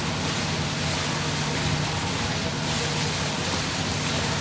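Boat engine running steadily: a constant low hum under an even wash of noise.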